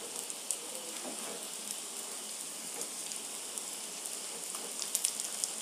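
Vegetable cutlets shallow-frying in hot oil in a non-stick pan: a steady sizzle with a few sharp pops about five seconds in.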